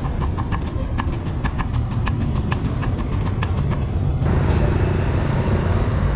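A metal spatula clinks against a wok in a quick, steady rhythm, about three strikes a second, over a steady low rumble. A little over four seconds in, the clinking stops and a denser hissing takes over.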